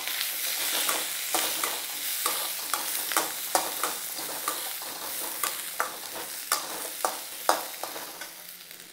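Chopped onions and shallots frying with whole spices in oil in a wok, sizzling while a metal ladle stirs them, with sharp clicks of the ladle against the pan about once or twice a second. The sizzle dies down toward the end.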